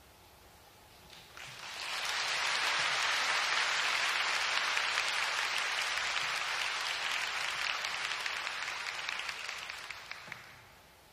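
Audience applauding, starting about a second in, quickly building to full strength, then dying away near the end.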